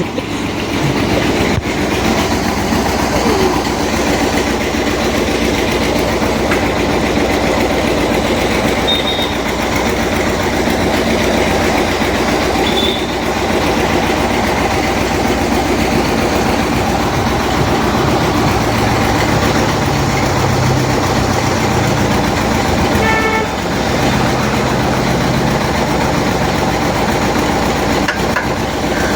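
Engine running steadily at idle, a loud, even mechanical rumble with a short dip about twenty-three seconds in.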